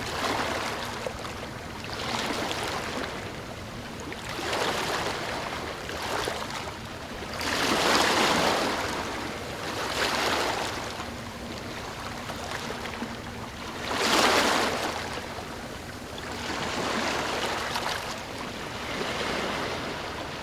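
Calm sea waves breaking and washing up a beach, a soft surge of surf every two to three seconds, with the biggest waves about eight and fourteen seconds in.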